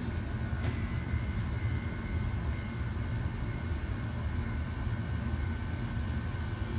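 Motorised valve manipulator on a water shutoff valve driving the valve open: a click just under a second in, then a steady gear-motor whine, over a low steady hum.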